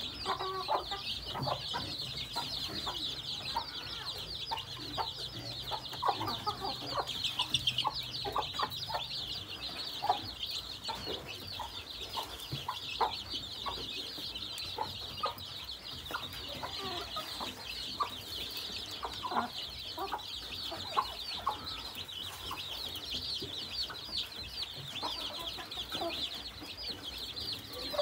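Chickens clucking while feeding, with many short calls scattered throughout. Over them runs a continuous high chatter of chicks peeping.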